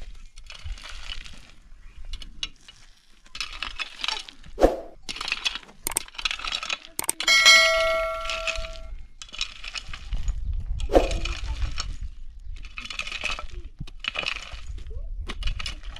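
Metal hoe blade chopping and scraping into dry, stony ground in repeated strokes, roughly one every second or so, with sharp knocks where it hits stones. About seven seconds in, one stroke strikes a stone and rings out with a clear metallic clang for over a second.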